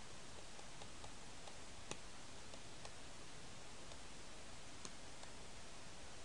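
Faint, irregular clicks of a stylus tapping on a tablet screen during handwriting, over a steady hiss of microphone noise. One click about two seconds in is the loudest.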